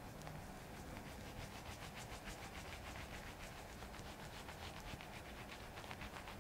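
Shaving brush swishing and scratching through lather on a bearded face, in quick, rhythmic strokes that become more marked about a second and a half in.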